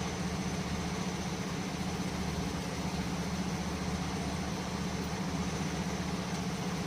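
A steady low mechanical hum with a faint even hiss, such as a motor or fan running.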